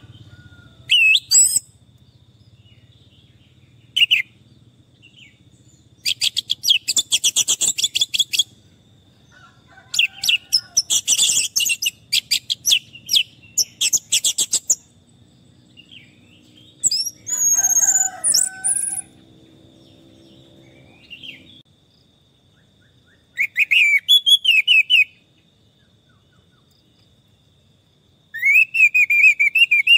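Orange-headed thrush singing in separate phrases with pauses between them. Some phrases are long, rapid, chattering trills; others are short whistled notes that bend up and down in pitch.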